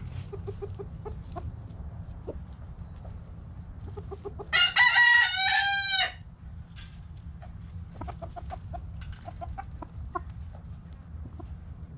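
A rooster crows once, a loud cock-a-doodle-doo lasting about a second and a half, starting about four and a half seconds in. Hens cluck softly in short notes before and after it.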